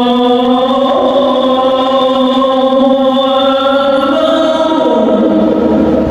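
A man's voice chanting in long held notes, shifting pitch about a second in and again around four to five seconds in.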